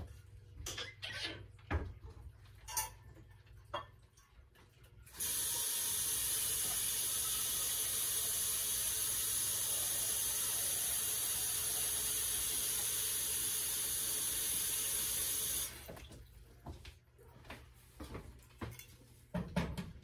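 Kitchen sink tap running steadily for about ten seconds, turned on about five seconds in and shut off abruptly. Before and after it come scattered light knocks and clatter of kitchen handling.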